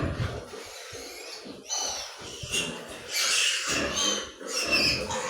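Farm animals calling, with short high-pitched cries in the second half.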